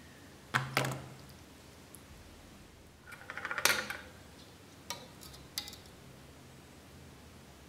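Steel knife blade clinking and rattling against a dish as it is handled: a sharp clink about half a second in, a quick run of rattling clicks around three and a half seconds, then two lighter clicks.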